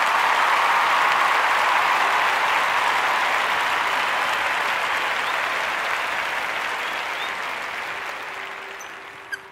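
Audience applause: steady crowd clapping that fades out near the end.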